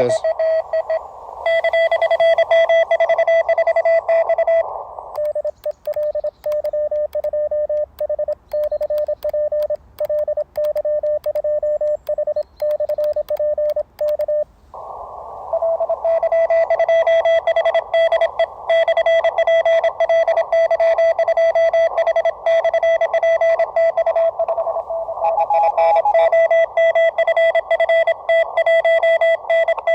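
Morse code (CW) signals on the 30 m ham band heard through an Elecraft KX2 transceiver: one steady beep tone over narrow-filtered receiver hiss, keyed rapidly on and off through the middle of the stretch.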